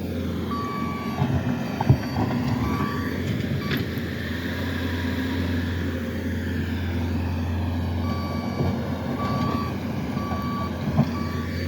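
Reversing alarm on a machine backing up, a single-pitch beep repeating at an even rate over a steady low engine hum; the beeping pauses for a few seconds in the middle.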